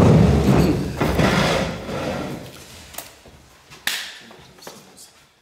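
Scraping, rustling and bumping of people getting up from a table right by the desk microphones, loudest over the first two seconds, then a few separate sharp knocks that die away.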